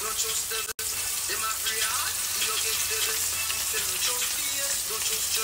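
Flour-coated chicken wings shallow-frying in hot oil in a pan: a steady sizzle with fine crackling. The sound drops out for a split second just under a second in.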